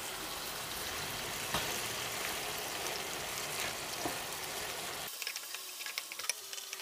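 Chicken livers frying on high heat in a pan of olive oil, a steady sizzle. In the last couple of seconds a wooden spoon stirs and scrapes through them, adding scattered ticks and clacks.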